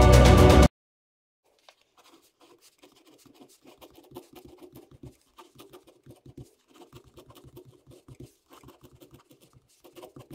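Background music cuts off suddenly under a second in. After a short gap, a ballpoint pen writes on paper: a quick, irregular run of faint scratching strokes as letters are formed.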